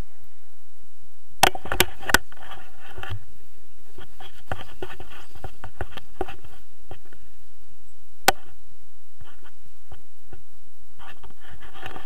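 Handling noise from the camera and harness gear: a quick cluster of sharp knocks about a second and a half in and a single knock around eight seconds, between stretches of faint rustling and clicking.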